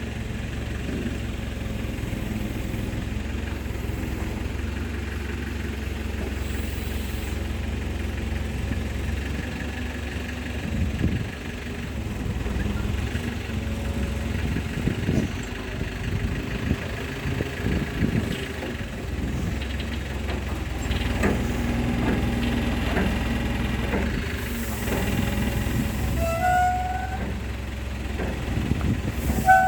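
A heavy vehicle's diesel engine idling steadily, with scattered metallic knocks and clanks through the middle and a few short high tones near the end.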